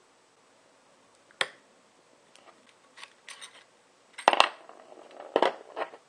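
Short pieces of copper pipe clinking against each other and on a hard surface as they are handled: a sharp click, a few light clinks, then two louder clattering knocks near the end.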